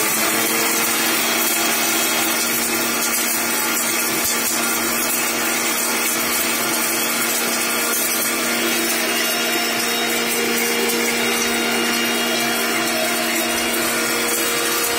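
Electric mixer grinder with a steel jar running at speed, dry-grinding roasted coriander and spices into powder: a steady motor hum with a few held tones over a loud, even grinding noise.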